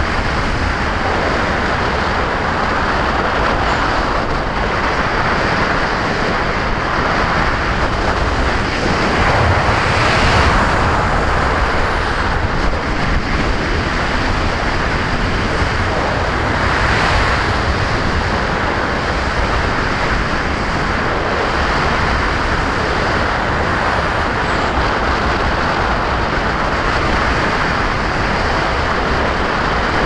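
Airflow rushing over a small action camera mounted on a radio-controlled glider's wingtip in flight, a steady wind noise that swells briefly about ten seconds in and again around seventeen seconds.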